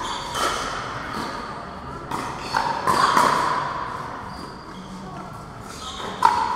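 Pickleball paddles hitting the hard plastic ball in a doubles rally, giving sharp pocks at an irregular pace with a cluster about two to three seconds in and the loudest hit near the end. Each hit rings briefly and echoes around a large hall.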